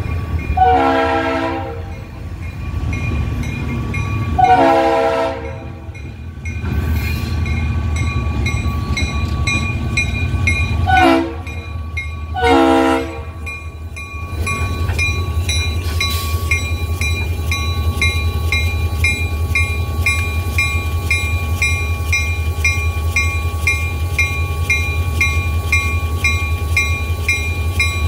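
CSX diesel locomotive horn sounding four blasts, long, long, short, long: the grade-crossing signal. The locomotive bell rings steadily in evenly spaced dings throughout. From about halfway, the locomotives' diesel engines run close by as they pass at low speed.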